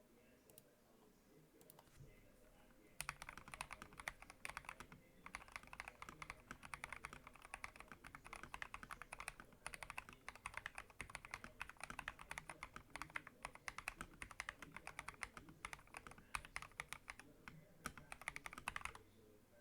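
Typing on an FL eSport MK870 mechanical keyboard with Akko Rose Red linear switches and PBT XDA keycaps: a rapid, steady run of keystrokes that starts about three seconds in, breaks briefly soon after, and stops shortly before the end.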